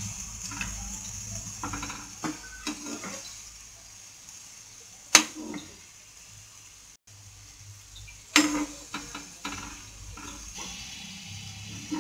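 Oil sizzling steadily as ghiya (bottle-gourd) koftas deep-fry in a black iron kadai. A metal slotted spoon clinks and scrapes against the pan several times, loudest about five and eight seconds in.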